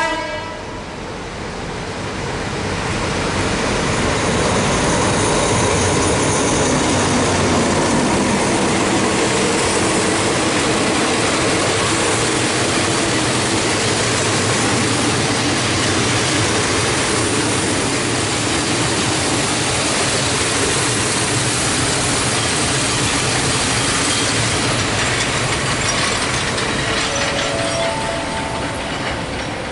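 A diesel locomotive-hauled passenger train passing close by, with a steady rumble of wheels on the rails. The sound builds over the first few seconds, holds loud while the carriages roll past, and eases near the end.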